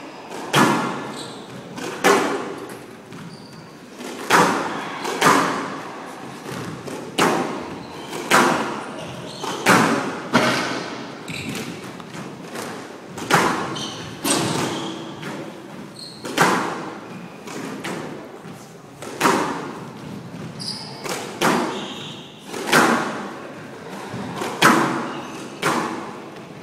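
A squash rally: the ball is hit by rackets and smacks off the court walls in sharp, echoing hits about once a second, often in quick pairs.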